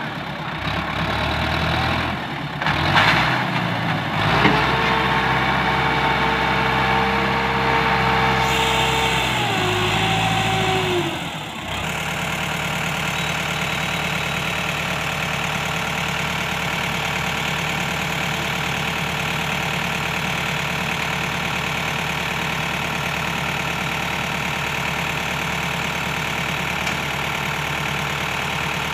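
Sonalika tractor's diesel engine running under hydraulic load as the loaded tipping trolley is raised. A steady higher hum rides over the engine for several seconds, dips and stops about eleven seconds in, after which the engine runs on evenly.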